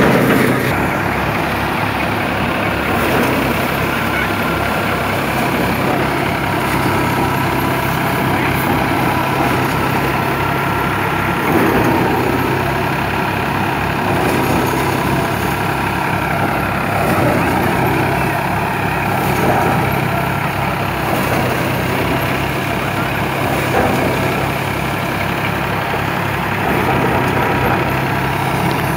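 Tractor-driven Dashmesh paddy thresher running steadily, its drum and blower powered by the New Holland tractor's diesel engine working under load, as bundles of rice straw are fed in.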